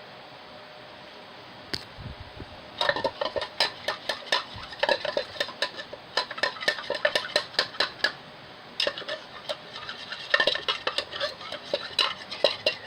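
A utensil stirring glue and activator in a cup, clicking and tapping quickly against the cup's sides as the slime is mixed. The stirring starts about three seconds in, pauses briefly past the middle, then picks up again.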